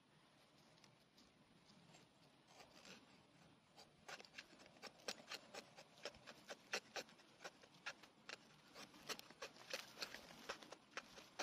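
Steel tomahawk blade, held choked up at the head, shaving a wooden stick in short strokes: faint at first, then from about four seconds in a run of quick, crisp scraping cuts, several a second.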